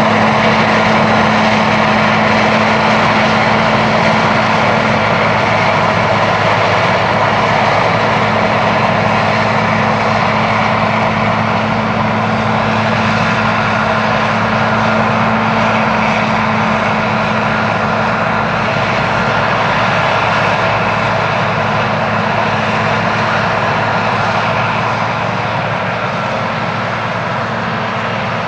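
Heavy diesel harvesting machinery running steadily: a continuous engine drone with a low, even hum, easing slightly toward the end.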